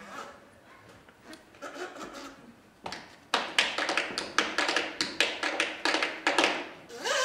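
Tap shoes: a few soft taps, then from about three seconds in a fast run of sharp tap strikes.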